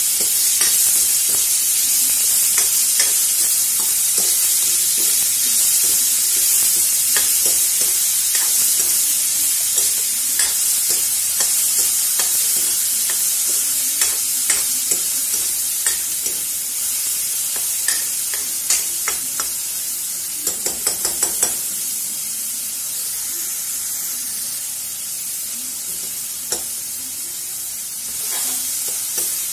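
Chopped onions sizzling in hot mustard oil in a metal kadai while a steel ladle stirs them, clicking and scraping against the pan. There is a quick run of ladle taps a little past two-thirds of the way through, and the sizzle eases off gradually. The onions are being fried until golden.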